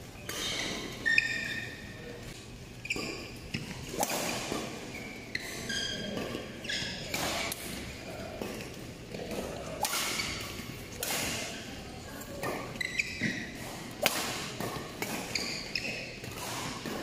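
Badminton play: sharp racket-on-shuttlecock hits at irregular intervals, several seconds apart, mixed with short high squeaks of shoes on the court mats.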